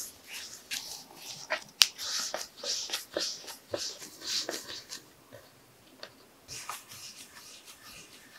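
Bread dough being rolled into balls by hand on a bamboo cutting board: short, irregular rubbing and brushing sounds with small taps of dough and hands on the wood, and one sharper click about two seconds in. It gets quieter and sparser after about five seconds.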